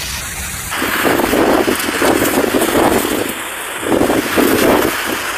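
Storm wind gusting hard through heavy rain and hail, buffeting the phone's microphone in repeated surges. It grows suddenly louder a little under a second in.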